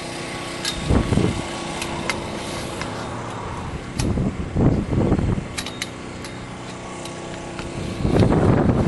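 Light metallic clicks of steel greenhouse tubing being slid into a clamp on a hoop, over the steady hum of a running engine. Louder handling bumps come about a second in, around four to five seconds, and near the end.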